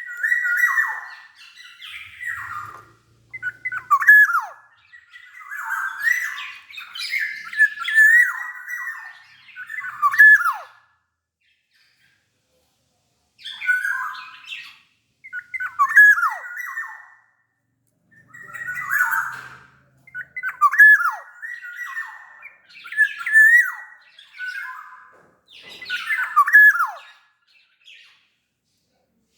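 Black-naped oriole (kepodang) singing and calling in bursts of loud whistled notes, many ending in sharp downward slurs, mixed with harsher scratchy squawks. The bursts stop for about two seconds around the middle, then resume.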